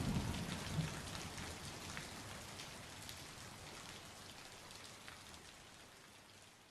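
Rain sound effect: a steady patter of falling rain with scattered individual drops, fading out gradually.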